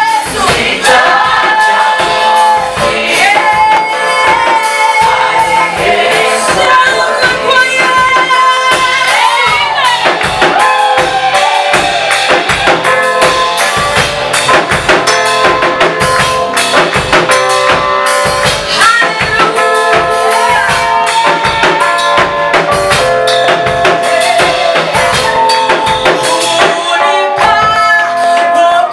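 Gospel praise song sung by a choir over a band with a drum kit, snare and bass drum keeping a steady beat.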